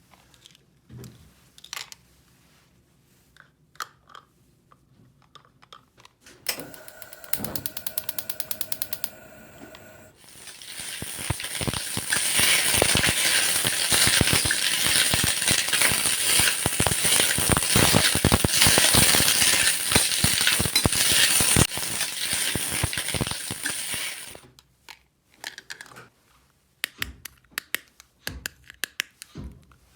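Small plastic toy-kitchen pieces clicking and handled, then a rapid, even ratcheting click for about three seconds. From about ten seconds in, a loud crackling noise runs for some fourteen seconds and cuts off suddenly, followed by more light clicks.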